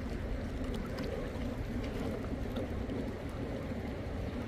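Flowing water rushing steadily.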